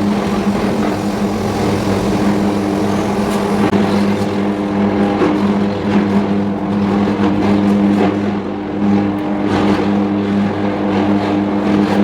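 Electric arc furnace melting a steel charge: a loud, steady electrical hum with irregular crackling from the arcs.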